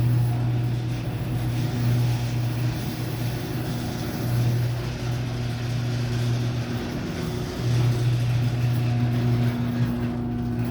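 Old LiftMaster garage door opener's electric motor running the door through its travel: a steady, loud low hum with a second, higher tone above it, wavering a little in strength. It is the opener working normally now that its new safety sensors are communicating.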